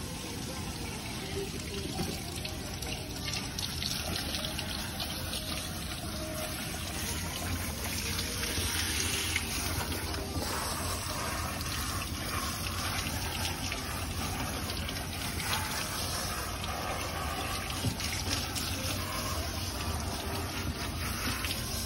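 Water spraying steadily from a hand-held hose nozzle onto a dog's wet coat and splashing on the tiled floor of a dog-wash tub.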